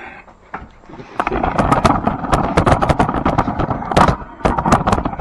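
Camera being picked up and repositioned: a dense clatter of handling knocks, clicks and scrapes, starting about a second in.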